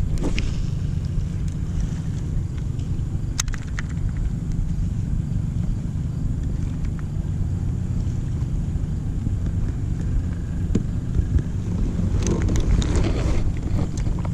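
Steady low rumble of wind buffeting the microphone. There are a couple of sharp clicks, and a brief rustling burst near the end.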